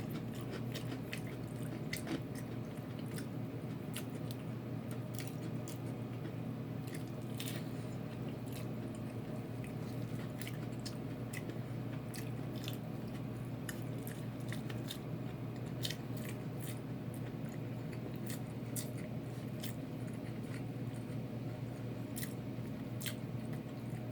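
Close-up chewing and biting into crispy Korean fried chicken, with irregular crunches and wet squishy mouth sounds, over a steady low hum.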